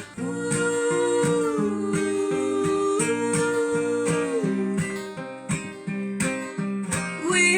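Acoustic guitar strumming a steady rhythm through an instrumental break, with long held notes that slide from one pitch to the next.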